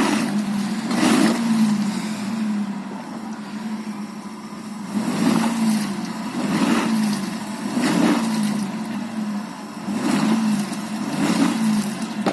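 UAZ Bukhanka van's engine running under load off-road, a steady drone that surges with a burst of noise every one to two seconds, about seven times.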